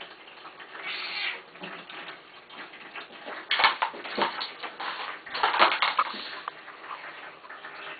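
A kitten at play, knocking and clattering cat toys and a plastic box, with the loudest knocks about three and a half and five and a half seconds in.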